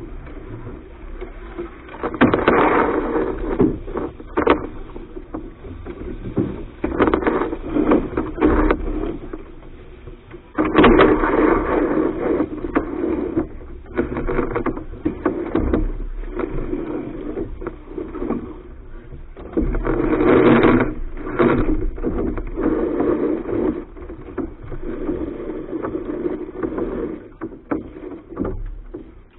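Soling keelboat under sail, heard from the foredeck: wind and water rushing, rising and falling in surges, with scattered knocks and scrapes on the deck and rigging.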